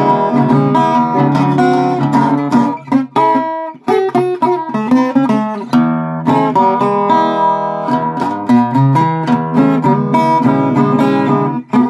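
Rosewood six-string steel-string acoustic guitar played fingerstyle, plucked notes and chords ringing in a continuous passage, with brief pauses about four seconds in and just before the end.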